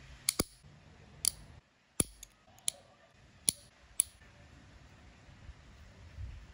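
Metal lever-type nail clipper snipping fingernails: a string of sharp clicks, about eight in the first four seconds, irregularly spaced, then they stop.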